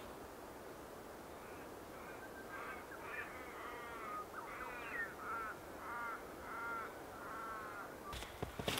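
A crow-family bird calling a run of about a dozen harsh caws, roughly two a second, over a faint outdoor hush. A few sharp knocks near the end.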